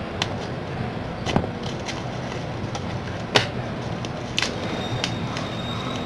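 Scissors snipping through bubble-wrap packaging, with the plastic crinkling as it is handled: a handful of sharp clicks and snips, the loudest about halfway through, over a steady background noise.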